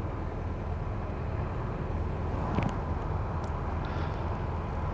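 Diesel engines of two tracked excavators running with a steady low drone, with one brief knock a little past halfway.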